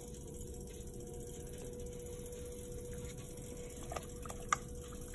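Electric potter's wheel spinning, with a steady faint hum, while hands and a sponge work the wet clay wall; a couple of small clicks about four seconds in.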